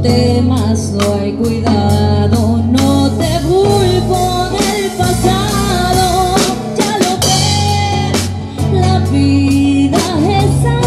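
Live band music: a woman singing with drum kit, bass guitar and guitar accompaniment, the drums striking a regular beat.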